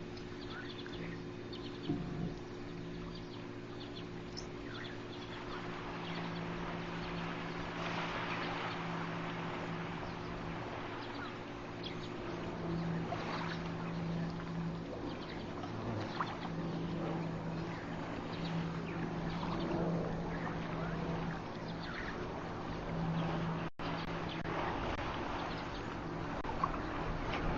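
Outdoor waterhole ambience: a steady low hum, a rushing water-like noise that swells after a few seconds, and a few faint bird calls.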